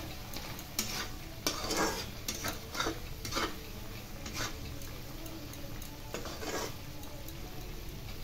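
A spatula stirring and scraping thick palak paneer gravy in a metal kadhai as it cooks. Several short scrapes come in the first four seconds or so and one more about six and a half seconds in, over a steady low hiss.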